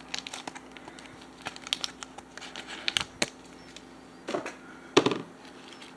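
Clear plastic packaging crinkling and crackling as it is opened by hand, in a series of sharp crackles, the loudest about five seconds in.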